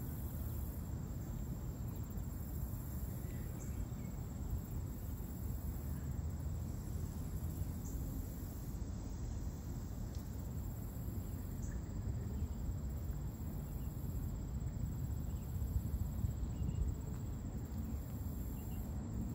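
Steady outdoor ambience: a low rumble under a continuous high-pitched insect drone.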